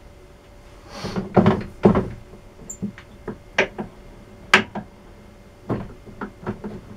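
Irregular knocks and clunks of metal parts being handled and set up on a small lathe, loudest about one and a half to two seconds in. The lathe is not running.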